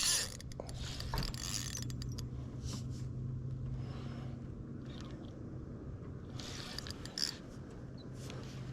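Fishing reel being cranked while a jig is worked, with scraping and handling noises from the rod and reel, over a steady low hum.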